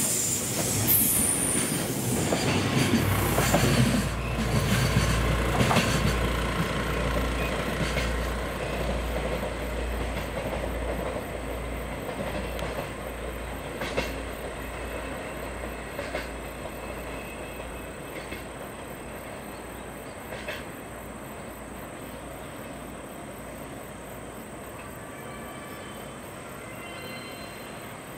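Container wagons of a freight train rolling past close by, the wheels and wagons loud at first, then fading steadily as the train draws away, with a few sharp clicks from the wheels along the way.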